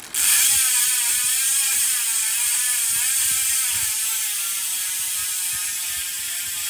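Profile Racing Elite MTB rear hub freewheeling as the spun rear wheel coasts: the freehub pawls' engagement makes a loud, fast ratcheting buzz. It starts suddenly, and its pitch wavers and slowly drops.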